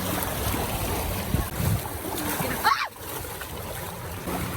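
Steady wind and surf noise with a low rumble. A brief higher-pitched sound comes near the middle, and the noise drops off for about a second after it.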